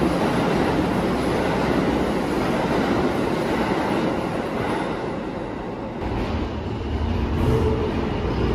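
R160 New York City subway train running past on a middle track, a steady rush of wheel and rail noise that eases off after about five seconds. A low rumble then builds again near the end.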